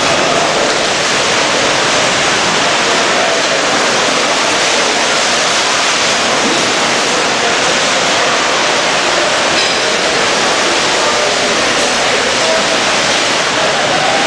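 Steady, loud rush of water as waves wash through a cruise ship's deck pool.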